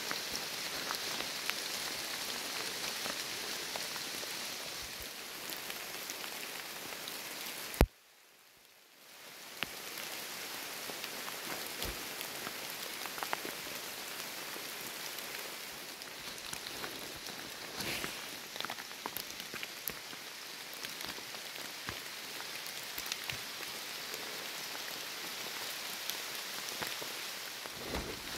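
Steady rain falling on the forest floor's leaves, with many small scattered drop ticks. About a third of the way in there is a sharp knock, after which the sound cuts out for about a second and a half before the rain fades back in.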